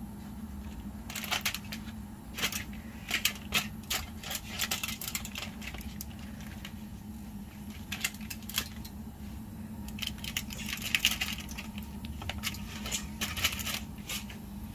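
Tongs clicking and scraping against a foil-lined grill tray as grilled chicken legs are turned, with foil crinkling; the clicks come irregularly, several to a second at times, over a steady low hum.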